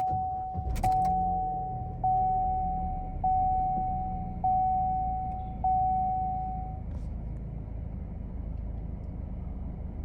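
Chevrolet Sonic engine starting about a second in and then idling evenly, with no stutter after refuelling, the symptom a failed evaporative purge valve had caused. Over it a dashboard warning chime rings six times, about once every second, then stops.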